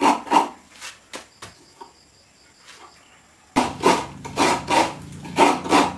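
A coconut half is scraped against a coconut grater in repeated scraping strokes, about two or three a second, as its meat is grated out. The strokes grow faint for a couple of seconds in the middle and come back strongly about three and a half seconds in, when a low steady hum joins them.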